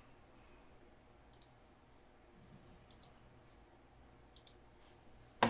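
A few faint computer mouse clicks, some in quick pairs, over quiet room tone.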